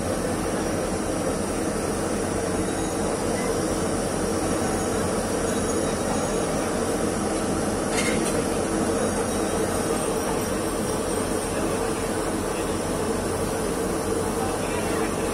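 Steady background noise at a street-food griddle stall: an even, unbroken rumble with a faint hum, and one short click about halfway through.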